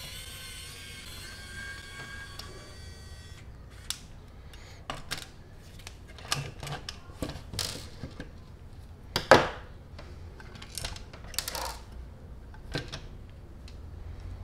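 Small screws and plastic and metal parts of a die-cast model car chassis being unscrewed, lifted out and set down on a tabletop: a string of light clicks and taps, the loudest about nine seconds in. A steady whine runs at first and stops suddenly about three seconds in.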